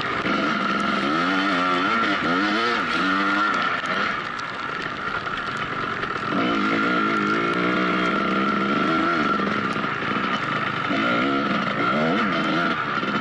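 Dirt bike engine being ridden, its revs rising and falling with the throttle, and easing off for a couple of seconds about four seconds in before picking up again. A steady high whine runs underneath.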